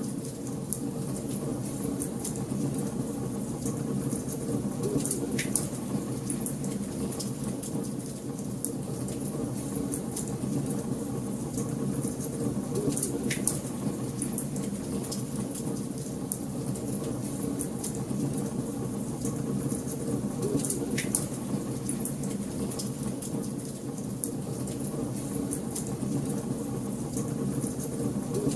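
Wood fire burning in a fireplace: a steady low rumble of flames with constant fine crackling, and three sharper pops from the burning logs spread through the stretch.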